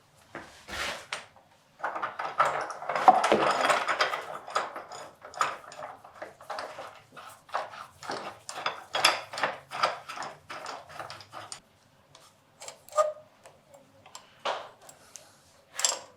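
Small metal and wooden parts clinking and knocking as they are handled: a dense clatter a couple of seconds in, then a run of separate taps, thinning out to a few louder knocks near the end.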